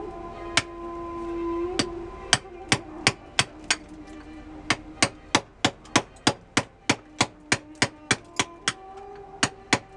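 Hammer striking a steel point chisel into a marble block, roughing out the stone: sharp strikes, a few spaced ones at first, then a steady run of about three a second with brief pauses.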